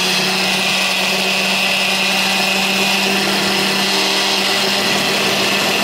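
Countertop blender with a glass jar running steadily at full speed, grinding oven-dried eggshells into a fine powder.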